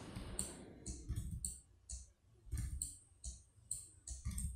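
Faint, irregular clicking of a computer mouse and keyboard while editing: about a dozen short, sharp clicks at an uneven pace.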